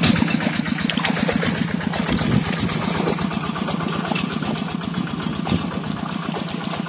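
Engine running steadily with a rapid, even pulse, the engine that drags a fishing net through the pond.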